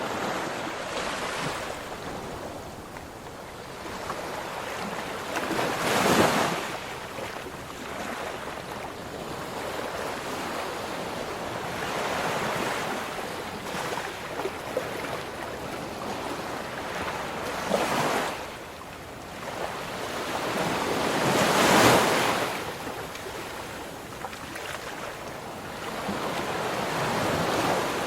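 Ocean waves washing ashore: a continuous surf wash with louder breakers surging about six seconds in, around eighteen seconds, and most strongly about twenty-two seconds in.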